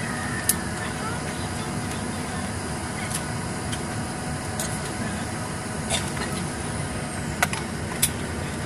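Steady cabin noise of a jet airliner rolling on the ground after landing: an even engine and airflow rumble, with a few sharp clicks near the start and end.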